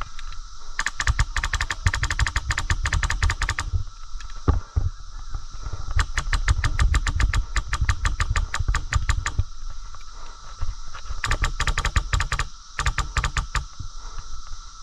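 Airsoft gun firing on full auto in four bursts of rapid, evenly spaced clicking shots, the second the longest at over three seconds.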